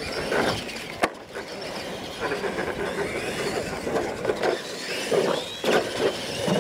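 Radio-controlled monster trucks racing on dirt: electric drivetrains whining, the whine rising and falling with the throttle, with a sharp knock about a second in and rough bumps and thuds from the track.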